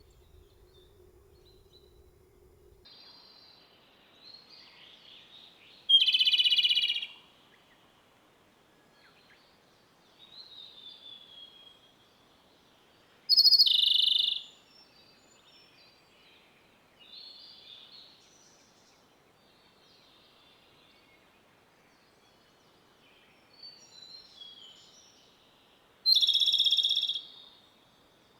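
A songbird singing. Three loud, rich bursts of about a second each come roughly 7 and 12 seconds apart, with softer, thinner warbling phrases in between.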